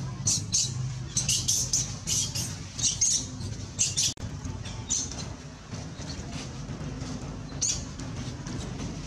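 Macaques squeaking in short high-pitched bursts, many in quick succession over the first few seconds and one more near the end, over a low steady hum.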